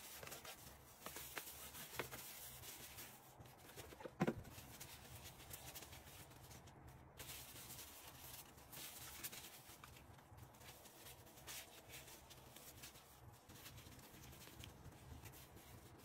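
Faint rubbing and rustling of a paper tissue wiping small bathroom items, with scattered light clicks and one sharper knock about four seconds in.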